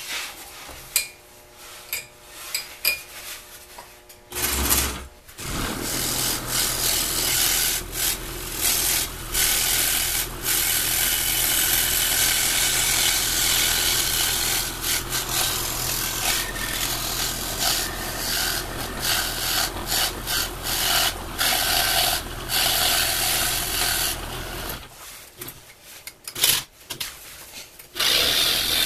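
Scroll saw with a reverse-tooth blade cutting a fretwork pattern in thin wood: a steady, fast rasping over the saw motor's hum. It starts about five seconds in, stops briefly near the end and starts again just before the end.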